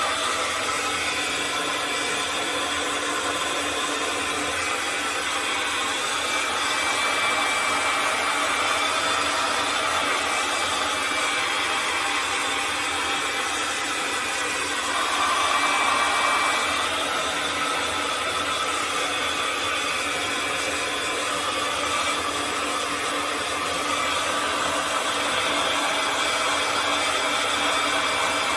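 Hand-held hot-air blower running steadily with an even whooshing rush, melting ice packed inside a refrigerator compartment; it swells a little louder for a moment about halfway through.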